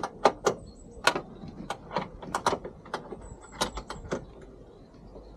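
Sharp, irregular metallic clicks and clinks from hand tools working the door hinge bolts, about a dozen in a few seconds.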